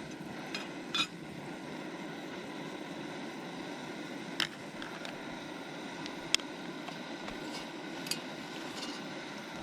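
Strong wind blowing steadily, with a few short sharp clicks or snaps scattered through it.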